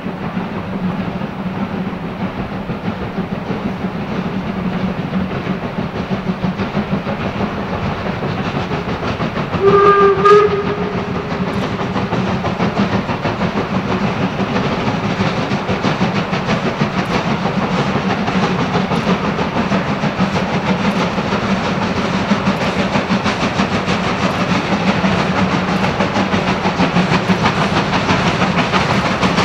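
Steam locomotive hauling a freight train, its exhaust beats coming fast and steady and growing louder as it approaches. About ten seconds in it gives one steam-whistle blast lasting about a second, the loudest sound.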